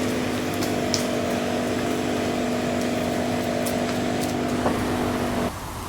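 Electric power tool motor running at a steady speed, a constant whine over noise with a few sharp ticks, which drops away about five and a half seconds in.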